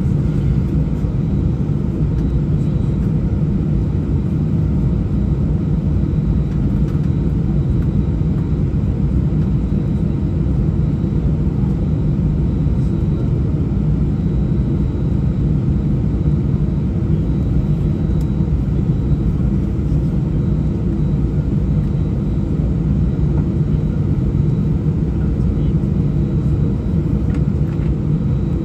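Steady low rumble of cabin noise inside an Airbus A319 on the ground during taxi, with its engines at low thrust. It stays even throughout.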